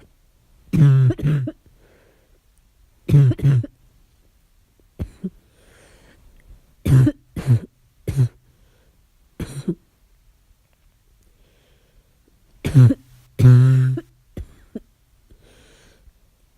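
A person's harsh barking cough, coming in short fits of one or two coughs every second or two, with a pause of a few seconds before the last, longer fit.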